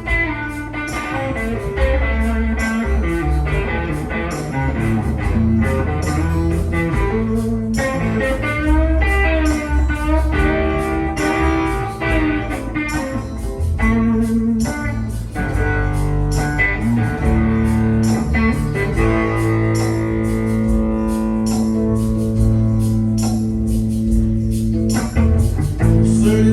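Instrumental break of a blues-rock song: a guitar plays over bass and drums with a steady beat, without vocals.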